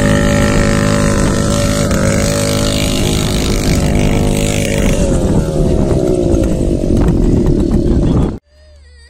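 Small two-stroke brush-cutter engine with a straight-through exhaust driving a homemade go-kart, running loud and steady at high revs, then dropping in pitch about five seconds in as the revs fall. The sound cuts off abruptly near the end.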